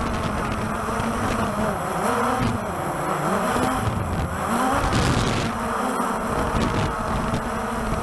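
Walkera TALI H500 hexacopter's electric rotors buzzing, heard from its own onboard camera. The pitch keeps swinging up and down as the motors pulse to hold position against gusty wind, and wind buffets the microphone with a low rumble.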